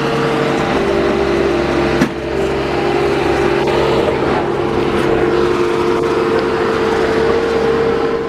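Skid-steer loader's diesel engine running steadily, with a steady whine over the engine note. A single sharp knock sounds about two seconds in.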